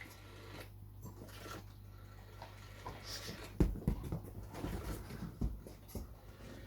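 Rotary dial of a GPO 746 telephone being turned and clicking back, with small handling knocks, over a faint steady hum; the clicking starts about three and a half seconds in.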